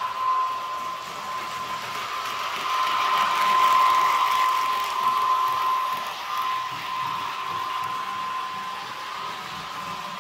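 H0 model of the ÖBB 4020 S-Bahn electric multiple unit running, its ESU LokSound 5 decoder playing the train's running sound over the whir of the model's motor and gears: a steady high tone with a mechanical hiss. It swells about four seconds in and eases off again.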